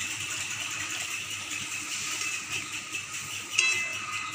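Wooden spatula stirring jackfruit seeds in a thin masala gravy in a kadai, a soft, steady wet scraping, with one sharp knock about three and a half seconds in.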